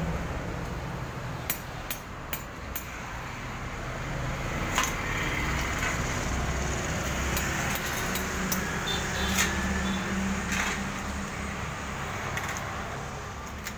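Scattered sharp metal clinks and taps from metalwork: four quick ones starting about a second and a half in, then single ones later. Under them runs a low rumble of passing road traffic that swells in the middle.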